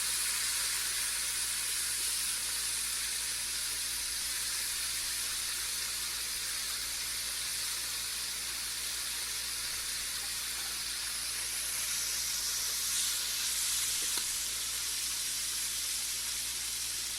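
Chicken pieces frying in hot ghee, browning: a steady, even sizzle.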